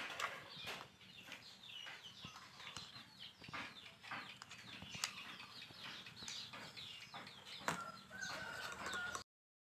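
Chicks peeping over and over in short falling chirps, with a few sharp clicks among them and a longer held note near the end.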